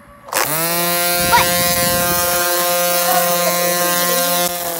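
String trimmer (weed eater) starting up suddenly about a third of a second in, its pitch dropping quickly and then holding as a steady, loud buzz.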